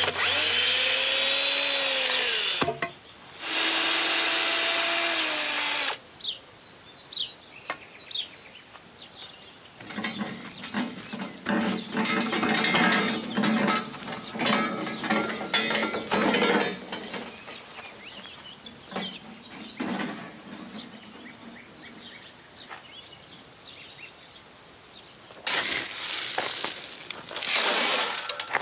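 Cordless drill whirring in two runs of about two to three seconds, its pitch rising as it spins up, driving screws into a wooden post. Later comes an uneven rattling and clatter, a steel wheelbarrow being pushed over rough ground, and near the end a loud, rough scraping crunch.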